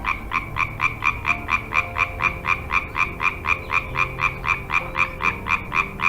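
A frog calling in a fast, even series of short croaks, about four a second, with low steady tones underneath.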